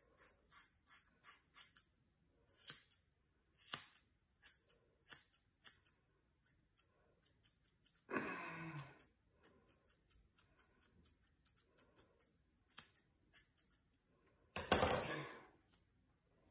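Scissors snipping through long hair, strings of short crisp snips several a second at first and sparser later, as the blades are slid down the lengths to layer the ends. A longer rush of noise comes about eight seconds in and a louder one near the end.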